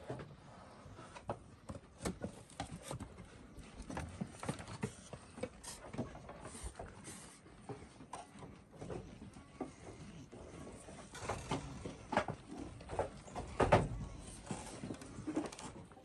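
Goats stirring on a wooden shed floor: scattered taps, knocks and shuffling, with one louder knock near the end.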